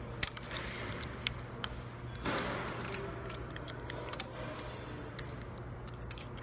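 A thin pick working a steel snap ring around its groove on a heavy-duty manual transmission's input shaft: irregular light metallic clicks and ticks as the ring is levered and shifted.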